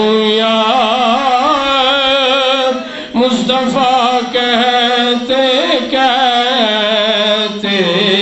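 A man's voice chanting a naat in long, drawn-out melismatic phrases with a wavering vibrato, breaking off briefly for breath about three seconds in and again near the end.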